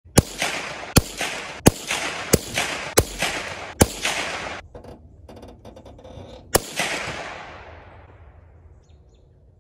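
Seven gunshots: six fired in quick succession about two-thirds of a second apart, then a pause and a seventh, each followed by an echo that dies away.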